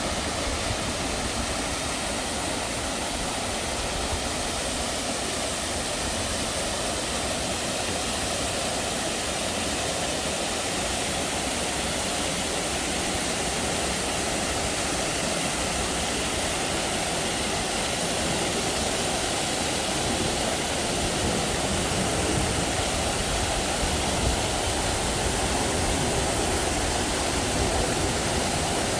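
Water falling down an artificial waterfall: a steady rushing roar, growing a little louder in the second half.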